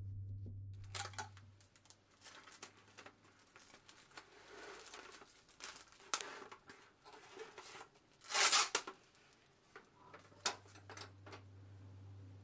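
Plastic cling wrap crinkling and rustling as it is pulled from the roll and handled, with a loud ripping burst about eight and a half seconds in as a length is torn off, and a few light clicks afterwards.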